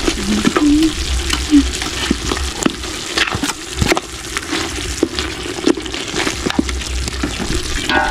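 A spoon stirring and scooping in a pot of simmering chicken stew over a wood fire. The stew sizzles steadily, and the spoon clicks and scrapes against the pot many times.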